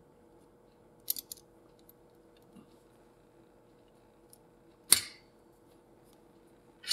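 Slide hammer's sliding weight knocking hard against its stop twice, about two seconds apart, pulling an old crankshaft oil seal out of a Suzuki TS50 engine case through locking pliers clamped on screws driven into the seal. A few light metallic clicks of the tool come about a second in.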